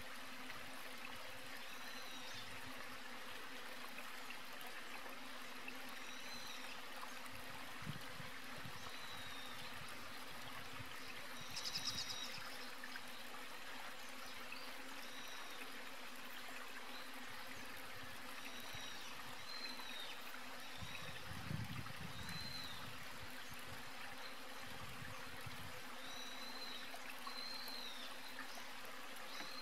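Outdoor wetland ambience: a steady hiss of running water, with short, high, arching chirps every few seconds and a brief louder flurry of chirps about halfway through.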